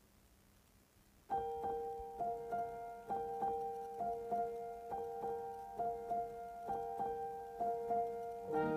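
Background piano music that starts about a second in: a simple tune of evenly paced notes, about three a second, each struck and then fading.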